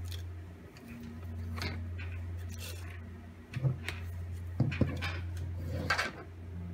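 Tarot or oracle cards being handled and shuffled by hand: scattered soft taps and rustles, several in a row, over a steady low electrical hum.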